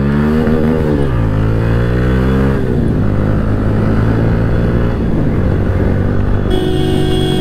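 Modified Bajaj Pulsar's single-cylinder engine, breathing through an Akrapovic exhaust, accelerating hard. The revs climb, fall at a gear change about a second in, climb again and shift at about two and a half seconds, then run steady. A horn honks for about a second near the end.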